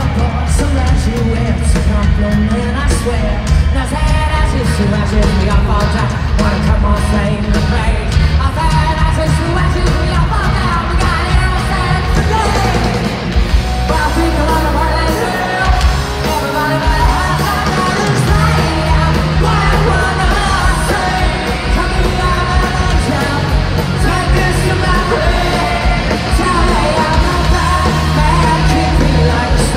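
Rock band playing live in an arena, heard from the crowd: drums, electric guitars and lead vocals at full volume. The lowest notes drop out for a moment about halfway through.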